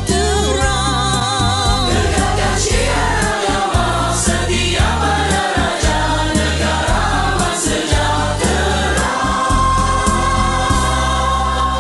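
A large mixed group of voices singing a Malay song in chorus over a backing track with bass and drums, the voices wavering with vibrato early on and ending on one long held note.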